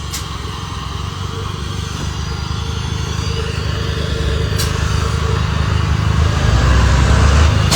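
Vehicle engine running with a low pulsing rumble that grows gradually louder, with a couple of short clicks.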